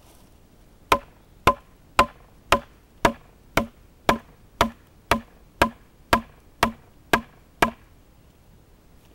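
A wooden baton striking the spine of a knife blade laid across a sapling pole, batoning the blade down through the wood: fourteen sharp, evenly paced knocks, about two a second, that stop near the end.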